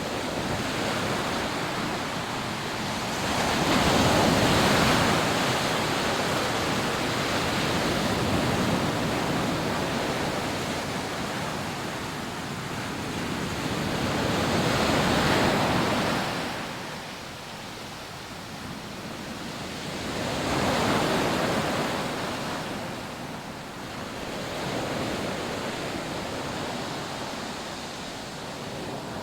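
Rough surf breaking on a sandy beach: a steady wash of waves that swells and ebbs, with three big waves crashing, the loudest a few seconds in, and a smaller one near the end.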